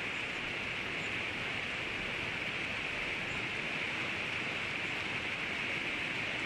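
Steady rushing of a river's flowing water: an even hiss that does not change.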